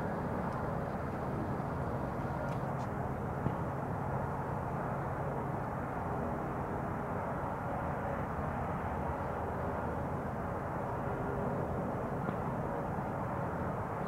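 Robinson R44 Raven helicopter heard faintly: a steady low engine-and-rotor drone under an even wash of outdoor noise, with a low hum that fades about six seconds in.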